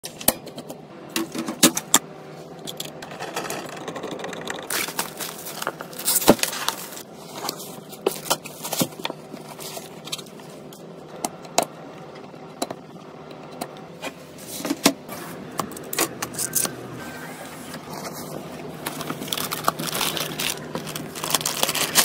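Handling sounds of PC parts being assembled by hand: scattered clicks, taps and light scrapes of plastic fans and power-supply cable plugs, with denser rustling near the end as a graphics card comes out of its shiny plastic wrapper.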